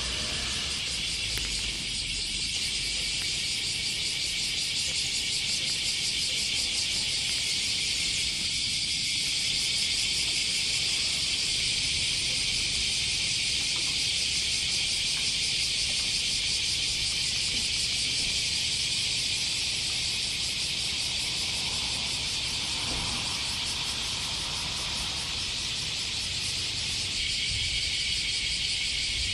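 Dense chorus of cicadas buzzing steadily and high-pitched.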